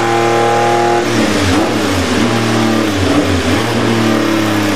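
Porsche 956's twin-turbocharged 2.65-litre flat-six running on a chassis dynamometer. It holds steady revs for about a second, then the revs drop and wander, and it settles back to steady revs near the end.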